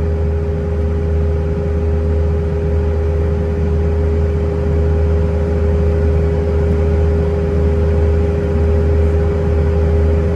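Steady in-flight cabin noise of an Airbus A320-212, heard inside the cabin over the wing: its CFM56 turbofan engines and the airflow make a deep rumble with a steady hum.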